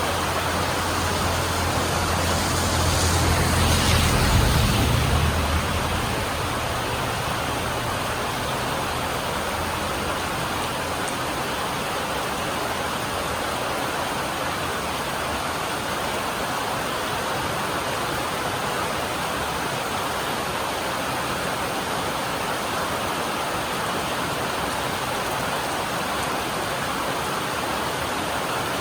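Steady heavy rain drumming on a metal roof, an even hiss-like patter. Over the first six seconds a low rumble swells and fades.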